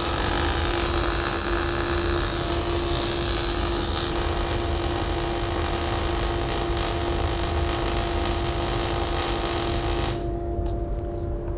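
MIG welding arc crackling steadily as a butt weld is run along thin 1 mm sheet, stopping about ten seconds in. The steady hum of the fume extractor lies underneath.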